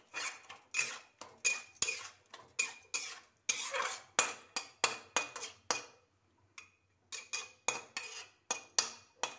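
Metal spatula scraping and clinking against an iron kadai while stirring a thick tomato and onion mixture, about two strokes a second with a short metallic ring on each. The stirring pauses for about a second just past the middle, then goes on.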